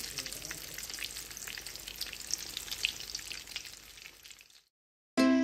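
Breaded minced-beef and mashed-potato croquettes shallow-frying in a pan of oil: a steady sizzle full of small crackles and pops, fading out about four seconds in. Music starts right at the end.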